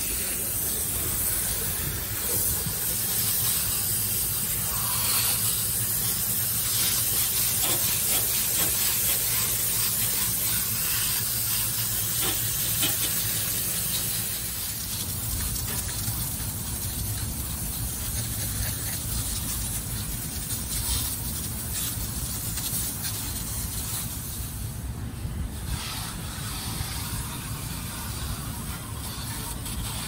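Water jetting from a pistol-grip hose nozzle into an air-conditioner condenser coil, a steady spraying hiss as the coil cleaner and dirt are rinsed out. The spray thins out about halfway through and briefly drops away near the end.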